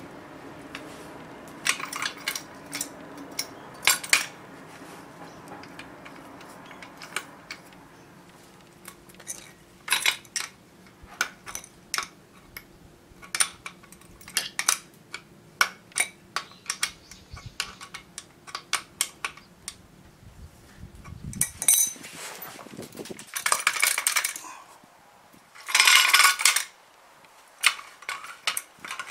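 Metal parts of a drill stand being handled and fitted together by hand: many small, sharp metallic clicks and clinks. In the last third come a few longer rasping bursts as the fittings are tightened.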